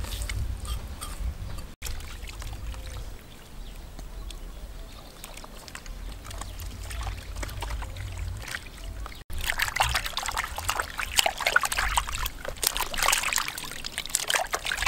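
Water splashing and sloshing in a plastic basin as hands wash skinned snakes, quieter at first and louder and busier over the last five seconds or so.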